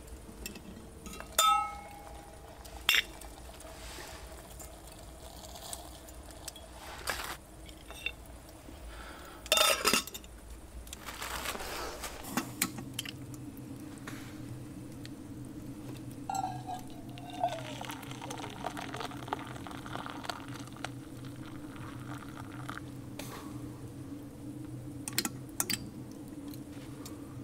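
Metal kettle clinking as it is handled over a campfire, and liquid poured from it into a stainless steel camp cup, with sharp crackles and clinks, the loudest about ten seconds in.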